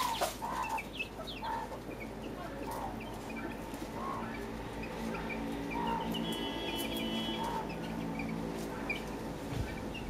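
Mother hen clucking in a slow, regular rhythm, a call about every second or so, with short high peeps from her chicks in between.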